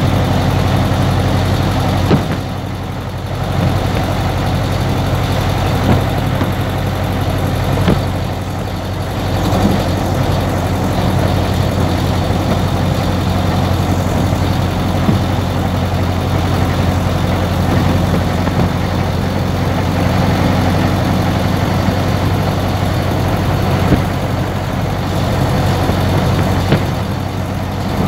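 1930 Ford Model A's four-cylinder side-valve engine running steadily as the car drives along at road speed, a low, even drone. It dips briefly twice in the first ten seconds.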